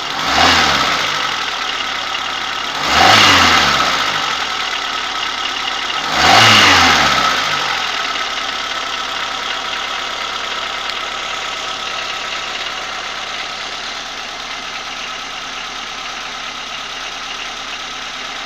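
Vehicle engine idling, revved three times with quick throttle blips about three seconds apart, each dropping straight back to idle, then idling steadily. It is the engine with the ringing knock whose cause the owner is asking about.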